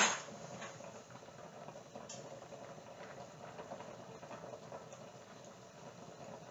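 Pot of pasta water at a steady boil, a faint even bubbling hiss, after a brief knock right at the start.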